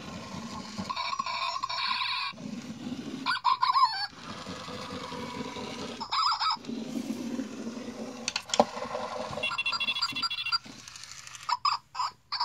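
Zhu Zhu Puppies robotic toy puppy with its motor running as it scoots on carpet, its speaker playing short electronic yips and chirpy sounds several times.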